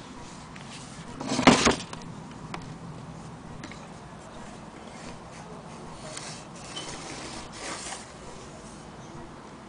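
Handling noise: one loud, brief scrape about a second and a half in, then two fainter ones later, over a low steady background.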